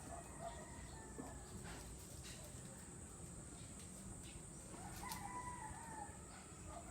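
A rooster crowing, one longer crow about five seconds in, with shorter calls near the start, over a steady high hiss.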